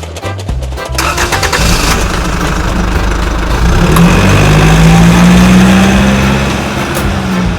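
A motor vehicle engine running and revving, its pitch rising about three and a half seconds in and holding high until it eases near the end.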